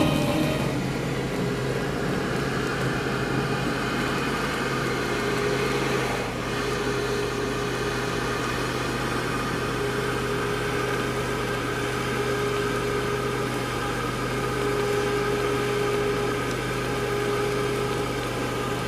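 Steady engine and road hum of a car, heard from inside the cabin, with a low drone and a faint higher whine that comes and goes.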